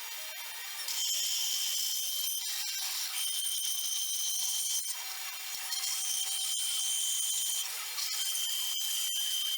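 Bandsaw rough-cutting a sword guard blank: a steady high-pitched cutting sound whose tone shifts several times as the cut goes on.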